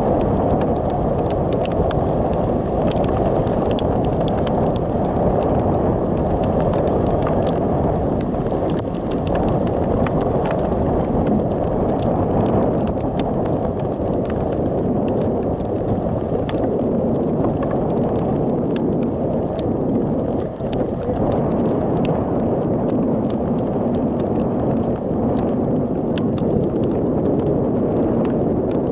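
Wind buffeting the camera's microphone: a steady, loud rumble, with scattered faint clicks throughout.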